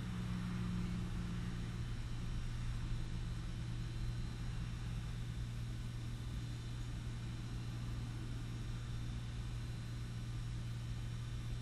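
Steady low hum with a faint hiss, unchanging throughout; a slightly higher hum component fades out about two seconds in.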